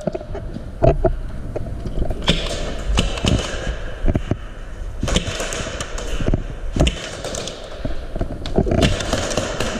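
A dozen or so sharp, irregularly spaced cracks and thuds of airsoft gunfire and BBs striking the arena's walls and barrels.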